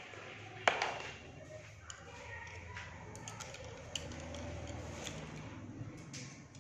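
Art supplies being handled on a desk: a sharp knock under a second in, then a few small clicks and light rustling.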